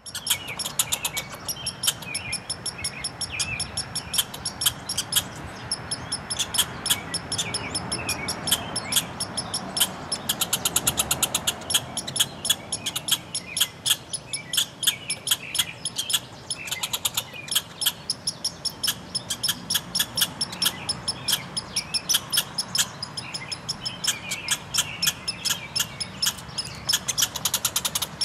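Two red squirrels quarrelling: rapid, sharp high-pitched chattering calls in bouts of many calls a second, broken by short pauses.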